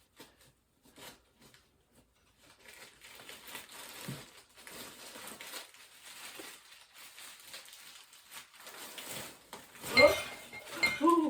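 Plastic bags and packets rustling and crinkling as a hand rummages blindly inside a storage trunk. Near the end comes a short, high, rising whine from a dog.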